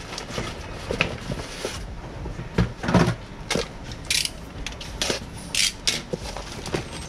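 Cardboard packaging being handled and opened: irregular scrapes and knocks of cardboard boxes, the clicking of a snap-off box cutter, and short bursts of crinkling plastic wrap.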